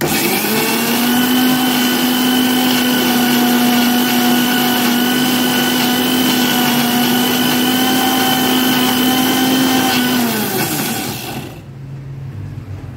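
Usha Colt Plus MG 3772 750-watt mixer grinder's motor spinning its small stainless-steel jar, grinding garlic with a little water into a paste. It starts suddenly and runs at a loud, steady whine for about ten seconds, then winds down in pitch and stops a second or so before the end.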